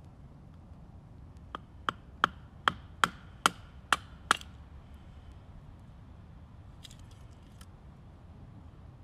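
A wooden baton knocking on the spine of a large bushcraft knife, a Wenger Wolverine, driving the blade down through a piece of wood to split it. There are about eight sharp, quick knocks, the first few weaker, followed by a few faint ticks.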